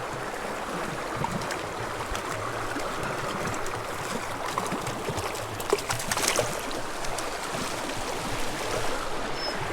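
Small spring creek flowing steadily, a constant rush of water, with a brief cluster of clicks about six seconds in.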